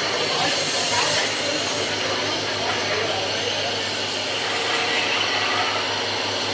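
A steady low mechanical hum with a hiss over it.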